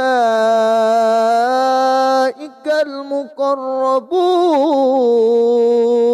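A man reciting the Quran in a melodic, chanted style, holding long drawn-out notes. There is a brief break with short syllables about two seconds in, then a long held note that slides down and sustains to the end.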